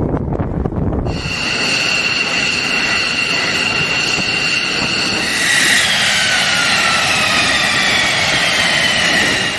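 F-15 jet fighter: a low jet roar for about the first second, then the high whine of its turbofan engines at taxi, several steady whistling tones that slowly sink in pitch over the last four seconds.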